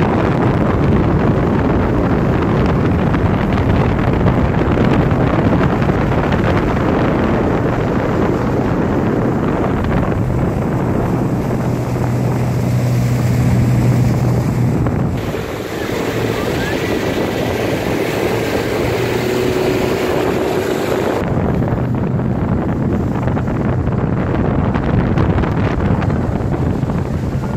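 Speedboat under way, its engine running with a steady low hum under heavy wind buffeting on the microphone and rushing water. The sound changes abruptly twice, about halfway through and again some seconds later.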